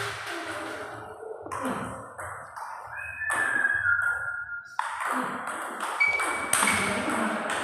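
Table tennis ball clicking off paddles and the table during a doubles rally, the hits coming at irregular short intervals. A high held tone sounds for about a second and a half midway.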